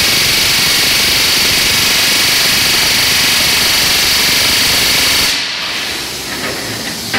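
Pneumatic rivet gun hammering a hot rivet into the steel running plate of a GWR Grange-class steam locomotive: a loud, rapid, continuous rattle that stops abruptly about five seconds in, leaving a fainter hiss.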